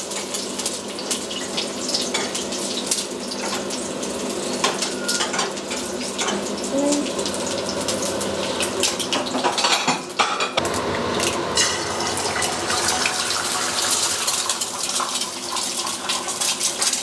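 Eggs frying in hot oil in a frying pan: a steady crackling sizzle with oil spitting and popping throughout, and a spatula now and then scraping and tapping the pan.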